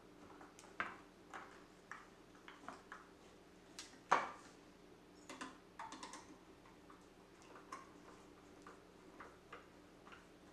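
Hand screwdriver turning small Phillips screws into a cup turner's leg bracket: irregular light clicks and ticks, with one louder click about four seconds in.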